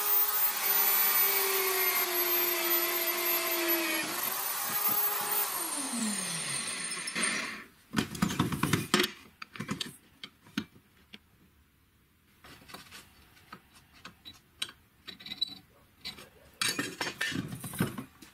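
Electric drill mounted in a homemade drill press, its motor running with a steady whine that dips briefly about four seconds in, then switched off and winding down about six seconds in. After that, scattered clinks and knocks of steel pieces and tools being handled on the workbench.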